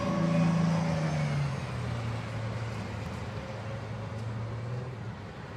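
A low, steady droning hum that swells in, its pitch dropping a step about a second and a half in, then holding level.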